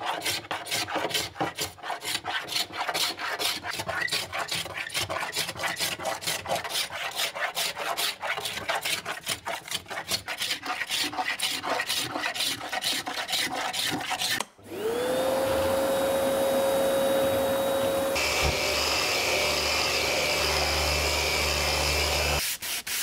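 Hand hook scraper scraping old paint off a fiberglass cockpit sole in quick, rhythmic strokes, about four a second. About two-thirds of the way in the scraping stops and a shop vacuum starts up, its motor spinning up into a steady whine, then cuts off just before the end.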